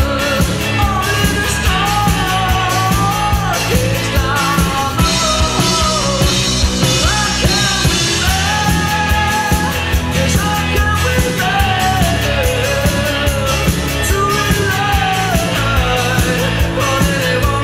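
1980s indie rock song: a full band with a sung melody over a steady drum beat.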